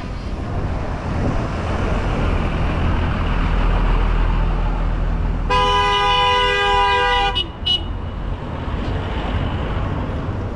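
Tractor engines running with a steady low rumble, and a vehicle horn blowing one long blast of about two seconds just past halfway.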